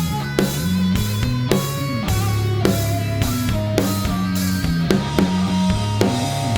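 A rock band playing live: a drum kit keeps a steady beat of about two hits a second under sustained bass and electric guitar notes.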